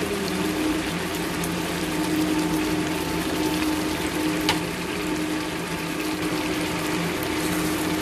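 Fish in sauce simmering in a nonstick frying pan, a steady bubbling hiss over a steady low hum. About four and a half seconds in, a spoon clicks once against the pan.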